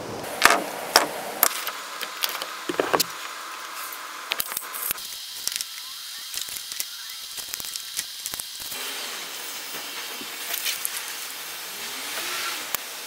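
Scattered clicks and taps of a tape measure and chalk line being handled on a plywood sheet as it is measured and marked for cutting, over a steady hiss.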